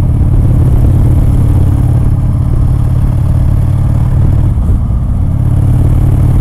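Motorcycle engine running at a steady pitch while riding, mixed with heavy wind rumble on the microphone.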